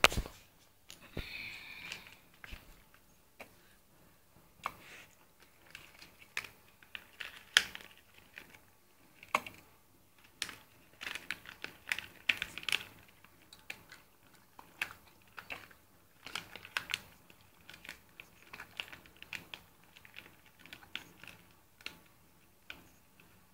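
A dog chewing and eating pieces of chicken from a plate, with irregular clicks and crunches of its jaws and teeth, some sharper than others.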